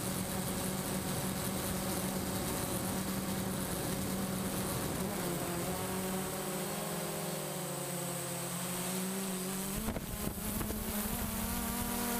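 DJI Phantom quadcopter's motors and propellers buzzing steadily, heard from the camera it carries. About halfway through the pitch sags, and about ten seconds in it climbs back up after a brief rush of wind.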